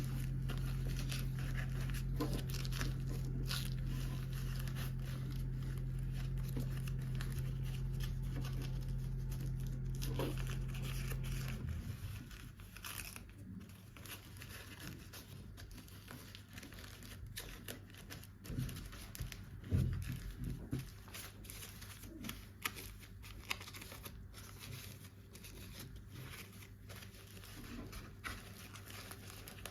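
Toy packaging being unwrapped by hand: plastic and paper crinkling and tearing, with scattered small clicks and taps. A low steady hum runs underneath and stops about twelve seconds in.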